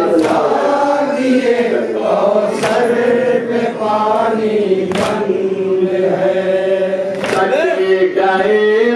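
Men's voices chanting a nauha, a Shia Muharram lament, in a drawn-out melody, with a sharp beat about every two and a half seconds.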